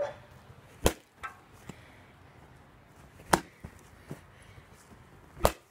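A baseball bat striking a pumpkin in four hard hits, two in quick succession at the start, then two more about two seconds apart, each a sharp chop as the pumpkin breaks apart.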